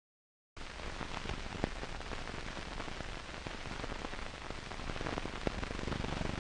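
Steady hiss with scattered crackles and pops from an old film soundtrack, cutting in abruptly out of silence about half a second in.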